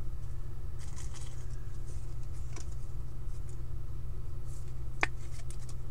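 Trading cards handled and slid against one another in short, soft rustles, with one sharp tap about five seconds in, over a steady low hum.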